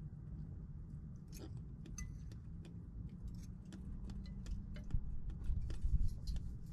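A person chewing a mouthful of strawberry, with scattered small wet mouth clicks. A fork clinks on a china plate near the end, over a steady low rumble.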